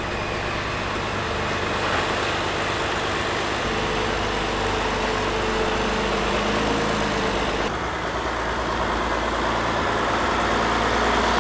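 Turbocharged diesel engine of an International Harvester tractor running steadily as the tractor pulls slowly out, freshly fitted with a new turbocharger.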